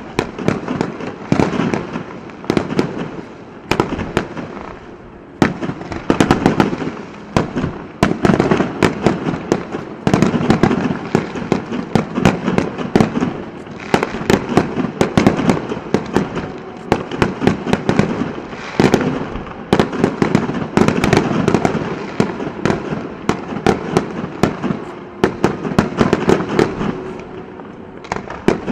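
Aerial fireworks going off: a dense, irregular run of bangs and crackles from bursting shells, one after another without a break.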